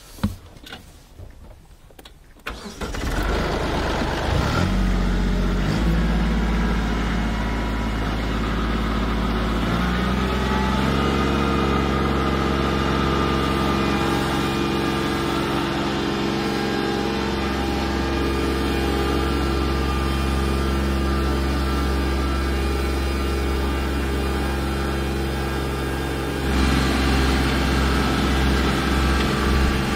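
Compact tractor engine starting about two and a half seconds in, after a sharp click, then running steadily as it drives a rotary harrow over loose soil. Its note changes about ten seconds in and gets louder near the end.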